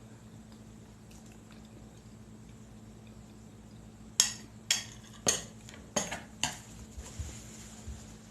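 Cutlery knocking and scraping against a plate of baked potato: five sharp clinks about half a second apart starting about halfway through, then a few fainter taps.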